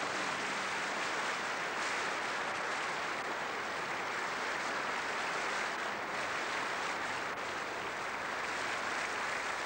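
Audience in a large hall applauding steadily.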